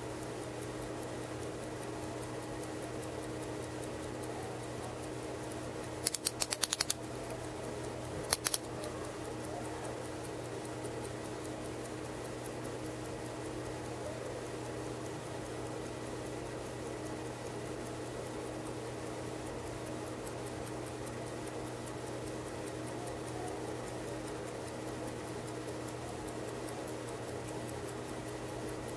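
Patek Philippe Chronometro Gondolo pocket watch movement ticking steadily as its balance and escapement run. About six seconds in comes a quick run of loud, sharp metal clicks, and two more follow a couple of seconds later.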